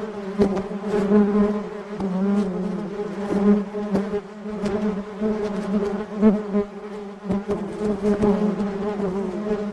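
A swarm of honey bees flying, many wingbeats blending into a dense, steady buzzing hum that swells and dips in level, with brief ticks and clicks scattered through it.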